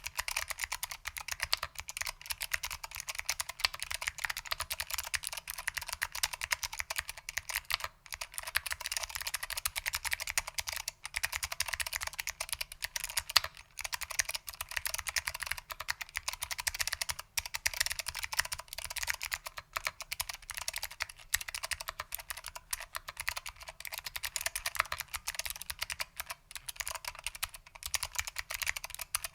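Fast continuous typing on a mechanical keyboard with SKCM Blue Alps switches, foam-damped, under ABS keycaps: dense crisp clicks, with a few brief pauses.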